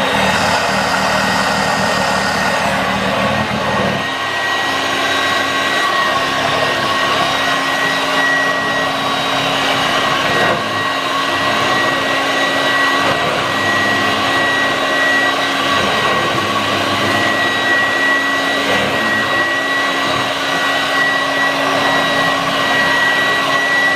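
Vorwerk VK 117-1H upright vacuum cleaner running steadily with a powerhead attached: a steady rush of air with a high whine. A lower rumble drops away about four seconds in.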